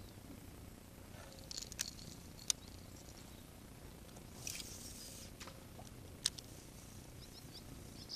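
Faint sounds of a fishing cast from a kayak: a brief hiss of line running off the reel about four and a half seconds in, among a few sharp clicks and taps from handling the rod and reel.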